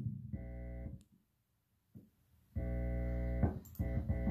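Three held notes from an electronic instrument, each steady and cut off abruptly: a short one about half a second in, then two longer ones back to back from about two and a half seconds in.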